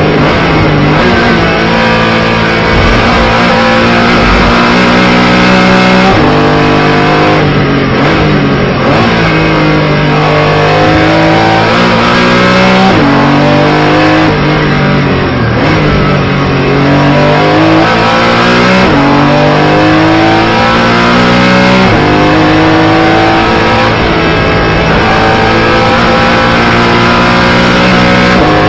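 Porsche Cayman GT4 Clubsport's flat-six race engine heard from inside the cockpit at racing speed. It climbs in pitch through the gears with sharp upshifts, and twice drops away with downshifts under braking before pulling hard again.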